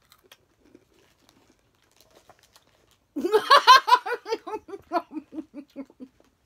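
A woman bursts out laughing about three seconds in, a quick run of ha-ha pulses that slow and drop in pitch over about three seconds. Before it there are only a few faint clicks.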